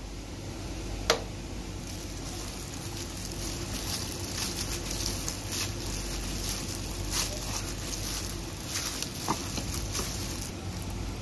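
A hand kneading wet, shaggy pizza dough in a plastic tub: soft, irregular squishing and patting as the dough is pressed and folded, with one sharp click about a second in.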